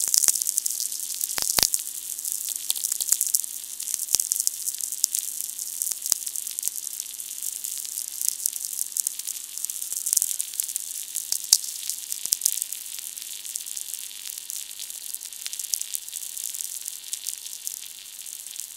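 Audio output of a VLF electric-field receiver: a steady crackling hiss packed with sharp clicks, over a faint steady hum of a few low tones. The operator puts the crackle down to rain hitting the receiver's antenna, and the hum is man-made electrical interference the receiver picks up.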